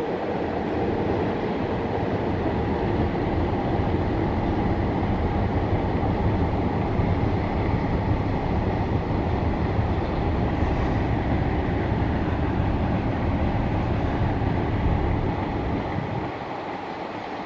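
Cement freight train rolling past, a steady heavy rumble of wagons on the track. The low rumble falls away about a second before the end.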